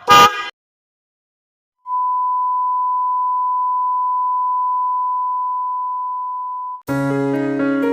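A half-second car horn blast at the start, then a pure steady electronic beep lasting about five seconds and slowly fading. Piano music starts near the end.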